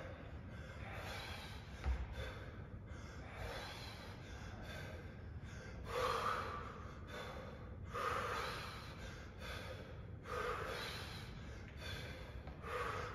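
Hard breathing of men exercising, with a loud, forceful exhale about every two seconds in time with repeated squat-and-press thrusters.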